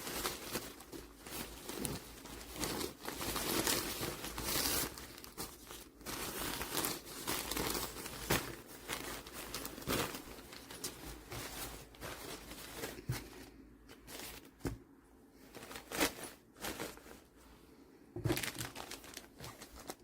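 Irregular rustling and crinkling, like plastic or thin material being crumpled and handled, with scattered clicks and knocks. It is busiest in the first half and thins out over the last several seconds.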